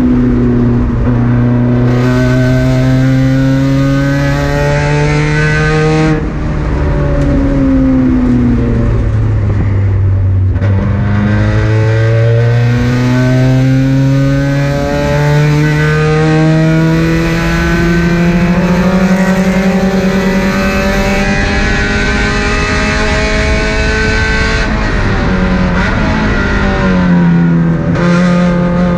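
Car engine being driven hard on a race track: the pitch climbs under full throttle, falls away as the driver lifts and brakes about six seconds in, then climbs again in one long slow pull before dropping once more near the end.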